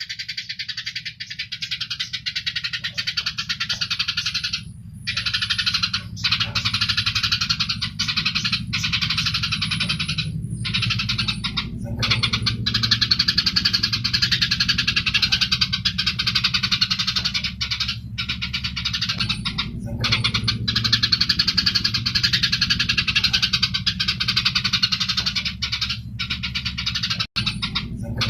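Eurasian tree sparrows chattering in a rapid, harsh, continuous stream of chirps: the agitated calls of sparrows fighting. The chatter breaks off briefly a few times, over a steady low hum.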